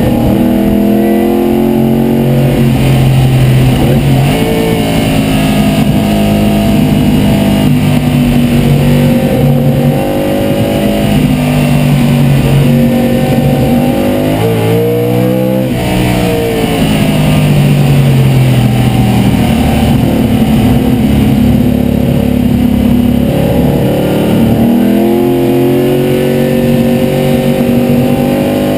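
De Tomaso Pantera race car's V8 engine running hard on track, heard from inside the cockpit. Its revs climb repeatedly with short drops at gear changes, and about halfway through they fall and rise back before climbing again.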